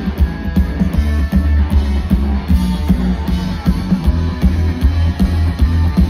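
A live rock band playing loud: electric guitar, upright double bass and drum kit, with heavy bass and a steady drum beat, heard through the PA from within the crowd.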